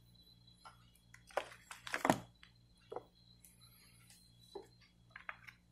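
A scatter of light clicks and knocks from hands plugging a phone's cable into a USB charger, the loudest a quick cluster about two seconds in.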